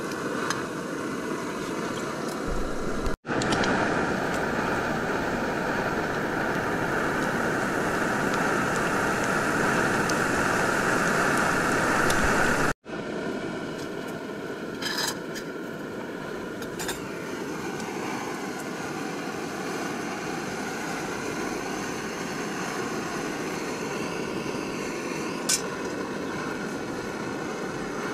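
Portable gas canister stove burning with a steady hiss under a pot, cut off abruptly twice, about three and thirteen seconds in. A few light clicks of cookware come later.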